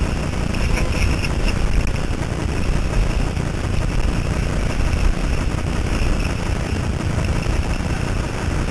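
Steady rumbling rush of wind buffeting the microphone, with skis sliding over snow on a downhill run. Brief higher hissing comes about a second in and again near seven seconds.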